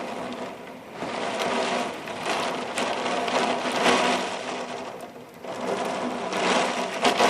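Storm wind gusting hard with rain, heard from inside the house. The rushing noise swells and fades in surges, dipping briefly about five seconds in before building again.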